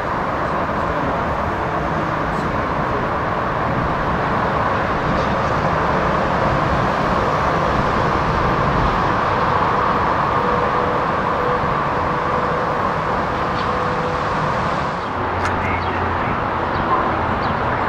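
Metro-North M2 electric multiple unit approaching, a steady running noise with a faint steady whine in the middle. About fifteen seconds in it gives way to quieter station ambience with a few light clicks.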